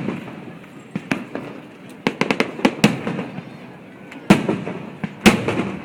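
Aerial fireworks bursting: a rapid string of sharp cracks around the middle, then two heavy booms about a second apart near the end, each leaving a rumbling tail.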